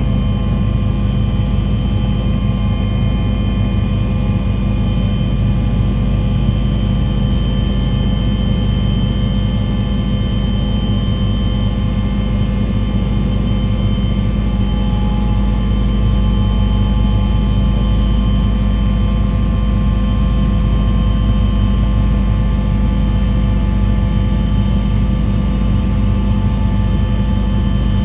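Steady engine drone, a constant hum of several fixed tones with a heavy low rumble that holds the same pitch throughout.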